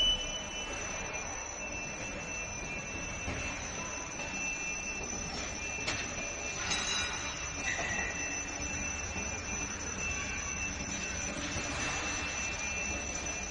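Machine-shop noise: a steady mechanical din with a thin high whine running through it and a few brief metallic squeaks and clicks.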